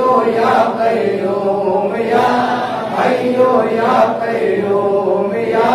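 Male voices chanting an Arabic devotional zikr, a slow phrase repeated over and over with long held notes.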